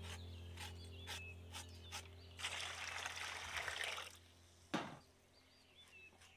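A rush of water-like noise for about a second and a half, like water being poured, between a few light taps and one sharp knock, over a low steady hum. Birds chirp faintly.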